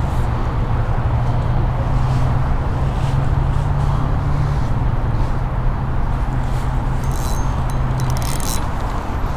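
A motor vehicle's engine running nearby: a steady low rumble with a held droning hum that drops away about eight seconds in, and a few faint clicks near the end.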